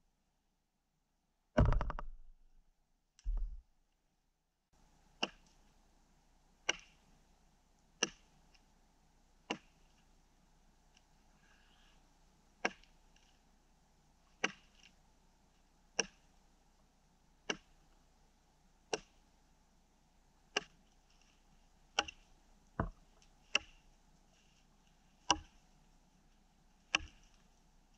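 Fire axe chopping a frozen spruce log: two heavy blows in the first few seconds, then after a short break a steady run of about fifteen sharp chops, roughly one every second and a half.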